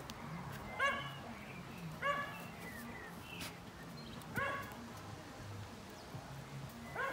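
Short animal cries, one every one to two seconds, four in all, each a clear pitched call that rises slightly at its start.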